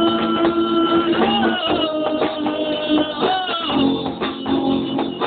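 Amateur rock band playing a song, guitar to the fore, with long held notes that bend up and down in pitch.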